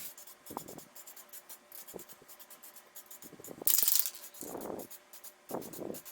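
Scattered small clicks and rattles of a spray can and keycaps being handled, with one short hiss of aerosol spray paint about two-thirds of the way in.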